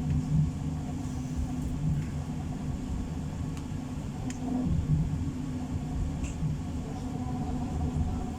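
Interior of a PESA low-floor tram running between stops: a steady low rumble with a constant hum over it.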